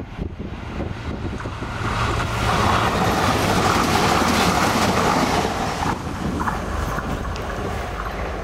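Diesel regional train passing close by on the single track. It grows loudest about three to five seconds in and fades as it moves away, with mistral wind buffeting the microphone.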